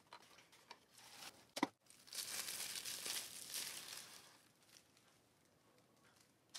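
A small cardboard box being opened and its packaging crinkled and torn: a few light clicks, a sharp snap about one and a half seconds in, then about two seconds of crinkling.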